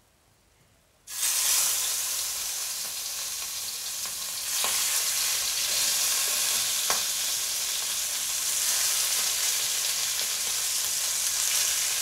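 Prawns frying in a little hot oil in a pan. The sizzling starts suddenly about a second in and then runs steadily, with two light clicks in the middle.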